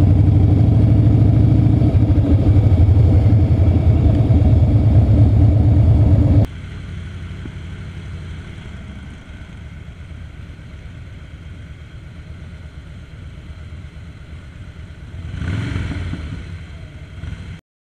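Harley-Davidson motorcycle engines running at low road speed. The sound drops suddenly to a quieter rumble about six and a half seconds in, swells briefly near the end, and cuts off just before the end.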